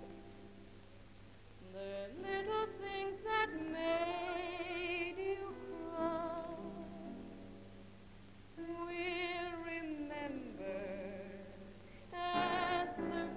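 A woman singing a slow song with strong vibrato on long held notes, over instrumental accompaniment.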